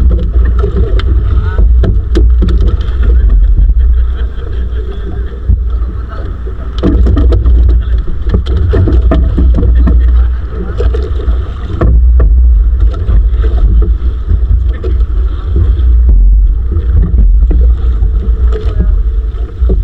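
Wind rumbling on the microphone aboard a small fishing boat, with scattered knocks and clatter from the boat.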